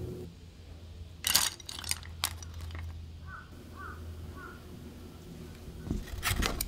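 Wooden chopsticks clattering onto a wooden cutting board, a quick cluster of knocks about a second in and two lighter single knocks after it. Another burst of wooden knocks comes near the end as they are handled.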